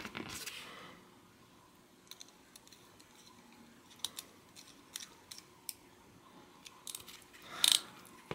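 Faint, scattered small metal ticks and clicks of a small flathead screwdriver driving two tiny screws into a Snap-On ratchet's cover plate. There is a louder scrape near the end.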